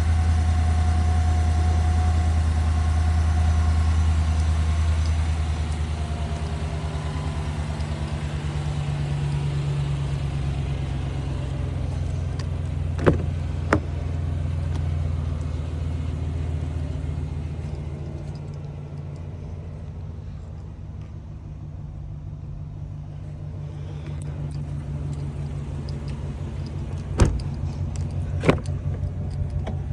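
A vehicle engine running steadily with a low hum that eases somewhat past the middle. Four sharp knocks come in two pairs, one pair about halfway through and one near the end.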